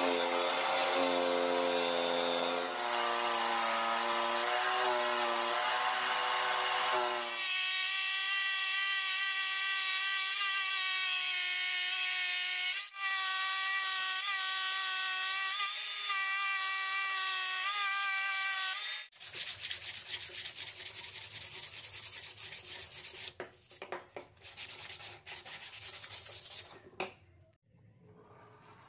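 Table-mounted jigsaw cutting a curve in thin plywood: a steady motor whine whose pitch shifts several times, then a rougher, buzzing cut that stops and starts a few times and ends a second or two before the close.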